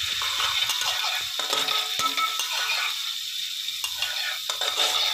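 Crushed unpeeled garlic sizzling as it fries in hot oil in a wok, being cooked until golden, while a metal spatula stirs and scrapes it around the pan with many short scraping strokes.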